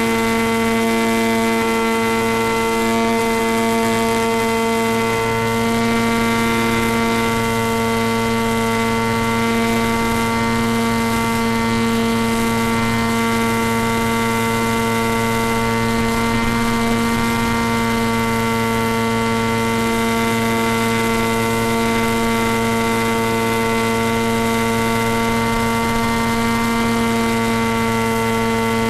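Electric motor and propeller of a small battery-powered RC plane running at a steady cruise throttle. It makes a constant, even-pitched drone over a hiss, with no change in pitch or level.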